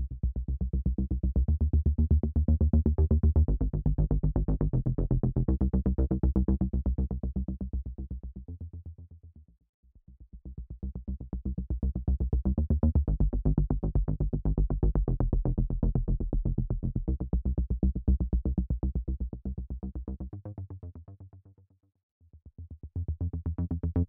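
u-he Zebra software synthesizer playing deep rhythmic action-bass presets: a rapidly pulsing low synth bass line with stepping notes that swells up and fades away. It drops out twice and restarts as a new pattern, about ten seconds in and again near the end.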